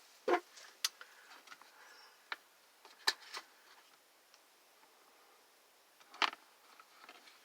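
Handling noise from taking apart and cleaning a space heater: a few sharp clicks and light knocks, the loudest about three and about six seconds in, with faint scraping and rustling between them.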